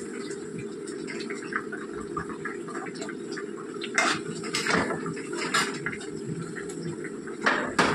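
Fish curry simmering and bubbling in a nonstick pan over a steady low background rush. A flat spatula scrapes and knocks against the pan several times in the second half as the gravy is stirred over the fish.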